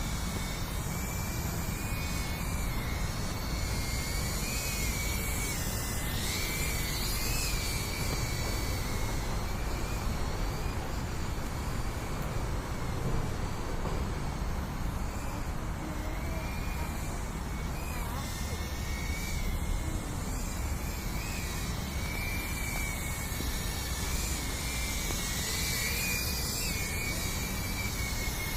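Small Cinerace20 FPV drone flying some way off, its propellers giving a thin whine that wavers up and down in pitch as the throttle changes, over a steady low rumble.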